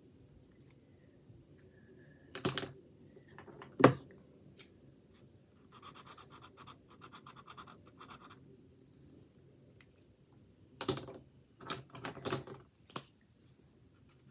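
Colouring strokes scratching on a canvas: a run of quick back-and-forth strokes about six to eight seconds in, with a few sharp knocks and taps around them, the loudest about four seconds in.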